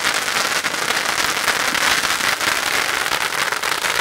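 Several ground fountain fireworks spraying sparks: a steady hiss with dense, rapid crackling.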